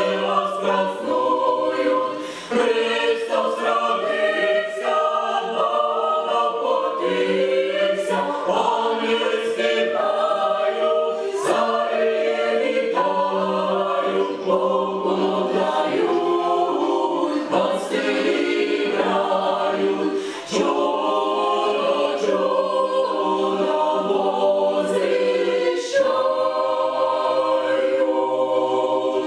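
Mixed choir of women's and men's voices singing a Christmas carol a cappella in several parts, in sustained chords, with two brief breaks between phrases.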